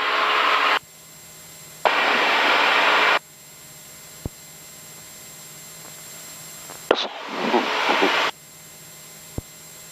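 Aircraft radio static heard through the headset: bursts of hiss, each about a second long, switch on and off abruptly three times as transmissions open on the frequency. The last burst carries a faint, garbled voice. Underneath runs a steady low hum, with two small clicks.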